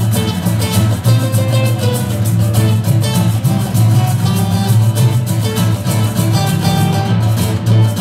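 Live acoustic band playing loudly: acoustic guitars strummed and picked over an upright double bass, with heavy bass in the room.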